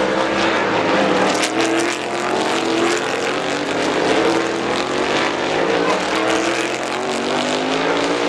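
Several race car engines at high revs passing through a corner, their overlapping notes slowly rising and falling.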